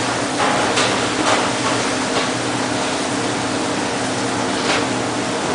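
Steady whirring hum of a fan-like machine, with a few faint short sounds from cheese curd being pressed together in hot water.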